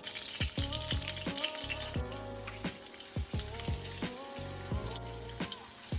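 Flour-dredged chicken thighs frying in hot cooking oil in a wok, a steady sizzle, with background music with a steady beat over it.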